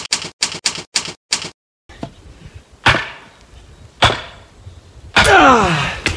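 Typewriter keystrokes, six quick clicks typing out a title. Then two sharp knocks about a second apart as a wooden cross is driven into the earth, followed by a man's loud groan falling in pitch.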